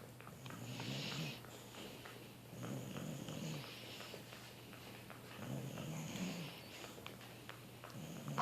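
A dog hiccuping: a rough, breathy sound of about a second that comes back every few seconds, three times.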